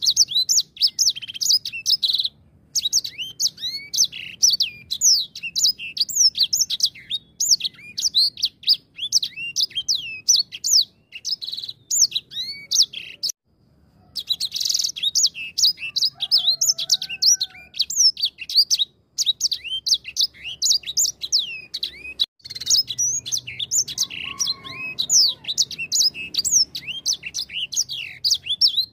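Grey singing finch (edel sanger) singing a fast, continuous song of high, sweeping whistled notes. The song breaks off briefly about two, thirteen and twenty-two seconds in.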